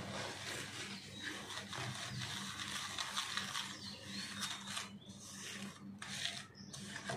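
Black hand whisk beating butter and powdered sugar in a stainless steel bowl: quick, uneven scraping and clicking of the whisk wires against the steel as the butter and sugar are creamed.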